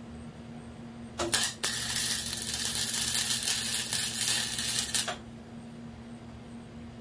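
Flux-core wire-feed welder arc on steel angle iron: it sputters on about a second in, then crackles steadily for about four seconds while a tack weld is laid, and cuts off abruptly.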